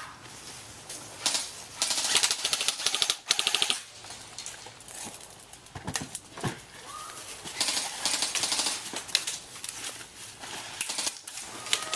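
Airsoft guns firing on full auto: several bursts of rapid, even clicking, the longest about a second long, coming about 2 seconds in, again just after 3 seconds, and once more near 8 seconds.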